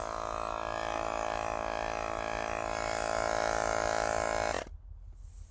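Portable electric tyre pump running steadily with a buzzing hum, straining a little harder as the tyre approaches 45 psi, then cutting off suddenly about four and a half seconds in.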